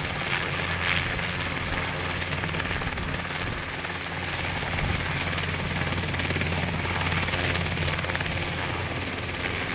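Light helicopter running on the ground with its rotor turning: a steady engine-and-blade drone with a constant low hum.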